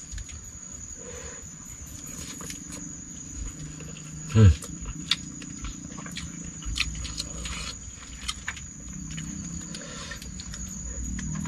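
Eating sounds of a person eating by hand from a plastic container: scattered sharp clicks and small knocks, over a steady high-pitched drone of night insects. About four and a half seconds in, one loud short sound falls steeply in pitch.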